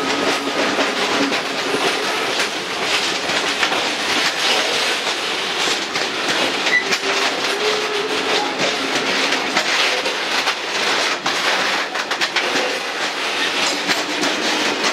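Long freight train of high-sided open bogie wagons rolling past close by: a steady rumble and rattle of wheels on rail, with a rapid run of clicks over the rail joints.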